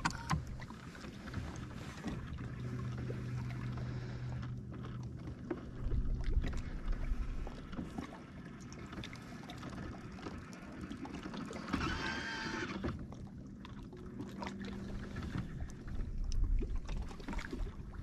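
Electric trolling motor on a bass boat humming steadily in spells, switched on and off as the boat is held along the bank. A brief high whine sounds about twelve seconds in.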